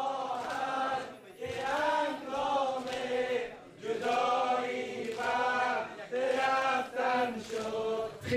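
Men chanting a Persian noha, a Muharram mourning lament, in melodic phrases of about two seconds each with short breaks between them.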